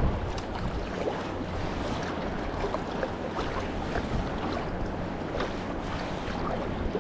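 Wind buffeting the microphone over choppy sea water lapping and splashing against a sea kayak's hull, with many small scattered splashes and drips.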